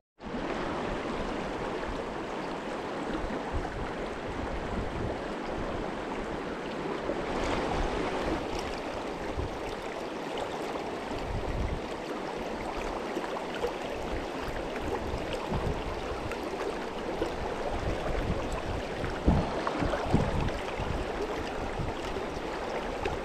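Mountain stream flowing: a steady rush of water.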